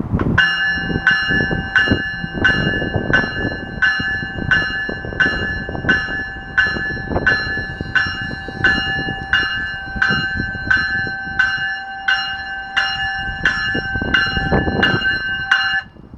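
GO Transit cab car's warning bell ringing at a steady pace, about three strokes every two seconds, as the train departs; it stops shortly before the end. Wind and low train rumble underneath.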